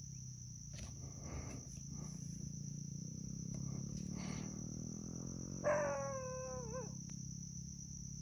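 Insects keep up a steady, high-pitched drone over a low steady hum. About six seconds in, a short pitched call lasts about a second, sliding slightly down in pitch.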